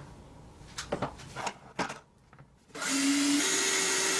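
A few light handling knocks, then about two and a half seconds in an electric power drill starts up and runs steadily, its whine stepping up in pitch shortly after starting, as it makes a hole for the vacuum hose connection.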